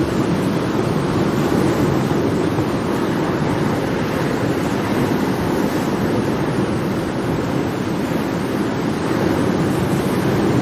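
Ocean surf: a continuous wash of waves with no single break standing out, swelling and easing only slightly.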